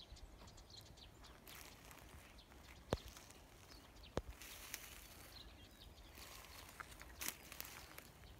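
Faint outdoor sounds: soft rustling with two sharp clicks about a second and a half apart near the middle.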